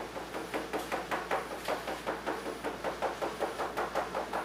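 A fork docking a raw quiche pastry base in a metal tart pan, stabbing again and again so the crust bakes evenly. Each stab is a light tap, in a quick, steady run of roughly four to five taps a second.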